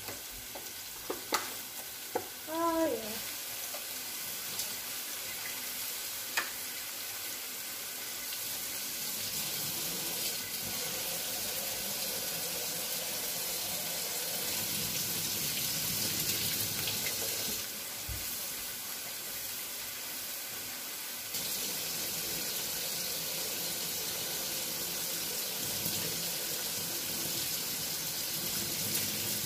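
Onions and peppers sizzling in oil in a stainless steel skillet, a steady hiss, with a few light clicks in the first seconds.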